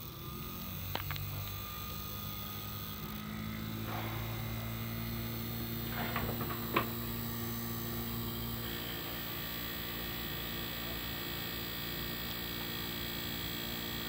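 Homemade reed-switch DC pulse motor running after switch-on: the pulsed electromagnet and spinning magnet wheel give a steady hum that builds about a second in and then holds. A couple of sharp clicks come about a second in and near seven seconds.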